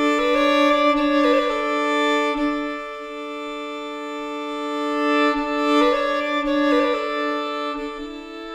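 Slow violin music of long held notes, two sounding together, changing every second or two and swelling and easing in loudness.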